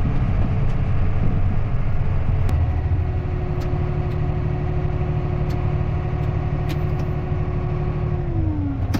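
Engine of a bank-out wagon (grain cart) running steadily, heard from inside its cab. A thin whine comes in about three seconds in and drops in pitch near the end.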